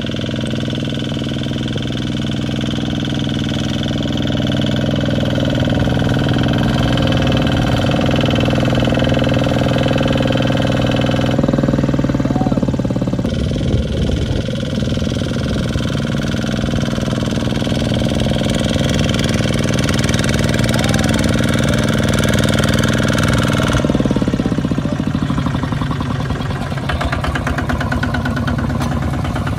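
Single-cylinder diesel engines of two-wheel walking tractors running steadily while hauling loaded trailers, the chugging changing abruptly a few times.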